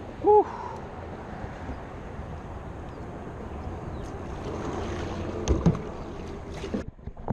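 Kayak being paddled: steady swish and splash of paddle strokes in the water, with wind on the microphone. A short pitched squeak comes just after the start, and a couple of knocks about five and a half seconds in; the sound stops abruptly near the end.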